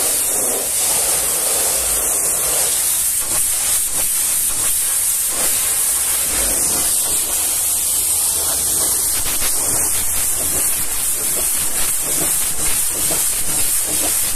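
High-pressure washer jet hissing steadily as it blasts mud off a truck cab's side panels, with water spattering onto the wet ground.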